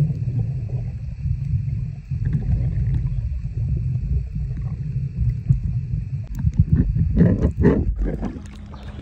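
Muffled low rumble of water moving against a phone recording underwater, with a faint steady high whine. About seven seconds in, the phone breaks the surface with a few splashes.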